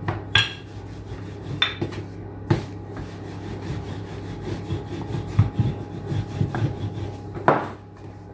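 Wooden rolling pin rolling back and forth over a round of dough on a hard countertop, a soft uneven rubbing, with a few sharp knocks on the worktop, the loudest near the end.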